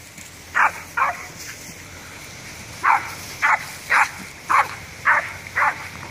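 A dog barking while playing: two short, sharp barks near the start, then six more in a steady run about half a second apart.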